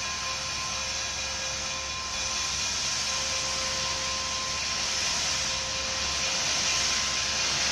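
Steam locomotive No. 98 letting off a steady hiss of steam without chuffing, the hiss growing a little louder about two seconds in.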